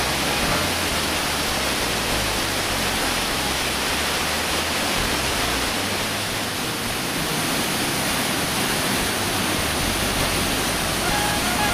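Mountain waterfall: a steady, even rush of falling water and white water churning in the plunge pool.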